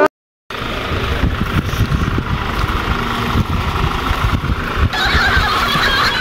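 Music cuts off into half a second of silence, then a steady background rumble like road traffic and motorbikes passing a shop, with irregular low thuds.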